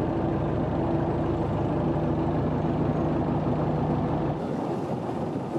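Boat engine running steadily with a low, even hum; about four seconds in the engine note drops away and a rougher rushing noise remains.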